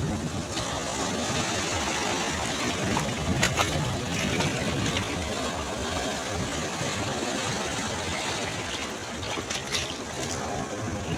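Sea waves breaking and washing on a shore, a steady rumbling surf with a few faint crackles.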